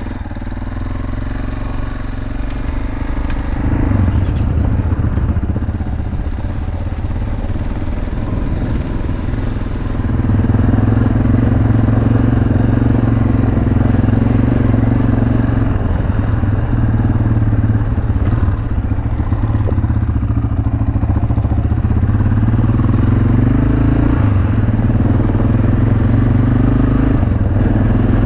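Dirt bike engine running as the bike rides off down a dirt road. Its note rises and eases several times as the rider opens and closes the throttle.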